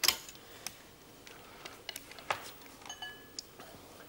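Light clinks and clicks of a spoon and ladle against a metal soup pot and china plates, sharpest right at the start, with a brief high ringing tone about three seconds in.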